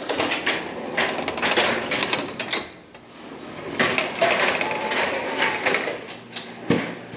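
Stainless-steel belt oven loader clattering and rattling as it is run into a deck oven to set down a row of loaves and then drawn back out. There are two spells of metallic knocking, the first over about the first two and a half seconds and the second from about four to six seconds.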